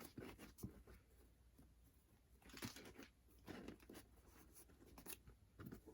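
Faint handling noises: a few soft clicks and brief light rustles as a pair of sneakers and their packaging are handled.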